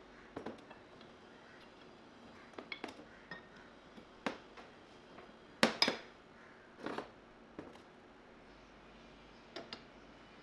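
Irregular clinks and knocks of metal parts being handled and set down on a workbench, the loudest two close together a little past halfway.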